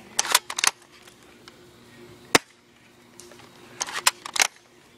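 Spring-powered airsoft FAMAS bolt-action rifle being worked: a quick clatter of clicks as the bolt is racked to cock it, a single sharp snap of a shot about two seconds in, then another clatter of bolt clicks near the end as it is cocked again.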